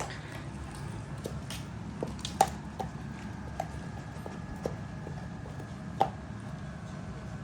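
A dog gnawing on a bone: irregular clicks and crunches of teeth on bone, with two louder cracks a few seconds apart.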